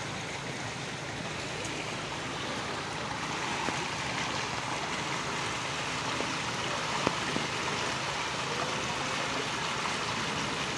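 Floodwater rushing along a street in a steady stream, growing a little louder about three seconds in, with a few small knocks.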